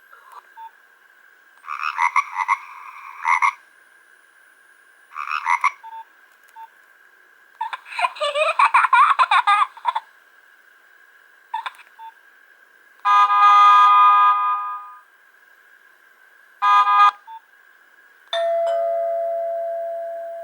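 Nokia 1110i mobile phone built-in monophonic ringtones and alert tones played one after another through the phone's small speaker: a string of short electronic beep patterns of a second or two each, separated by pauses, one warbling about eight seconds in, and a last tone that fades out near the end.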